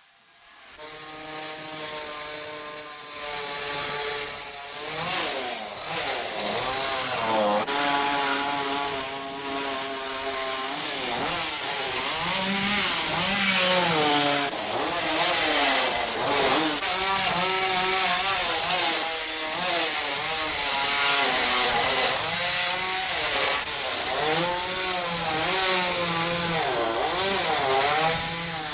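Chainsaw carving wood, the two-stroke engine revving up and down again and again as the chain bites in and eases off, over a steady rasp of cutting.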